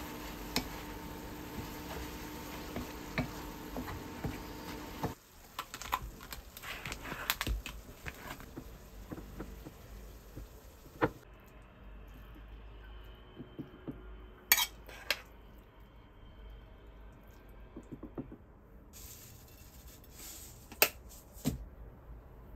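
Dishes and cutlery clinking and clattering over several short edited clips, with scattered sharp clinks; a steady hum runs under the first five seconds and stops at a cut.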